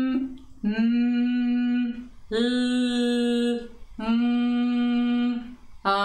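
A woman's singing voice holding a row of notes on one steady pitch, each about a second and a half long with short breaks between, changing the sound from note to note as a vocal warm-up that moves from the lips back toward the throat. One note in the middle has a hissing edge.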